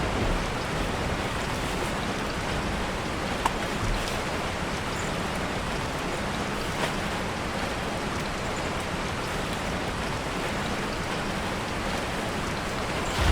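Steady rain falling, an even hiss with a few sharper single drop hits.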